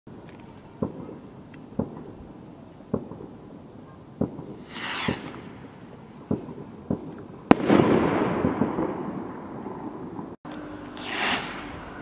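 Firework rockets: a string of sharp, fairly distant bangs, with the hissing whoosh of a rocket taking off about five seconds in. A loud crack about seven and a half seconds in is followed by a couple of seconds of dense crackling rumble, and another rocket whooshes up near the end.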